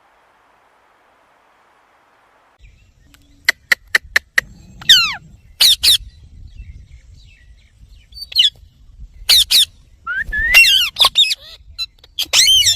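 Indian ringneck parakeet calling: after a quiet start, a few sharp clicks, then a series of loud, shrill squawks that slide downward in pitch, coming in short bursts with gaps between.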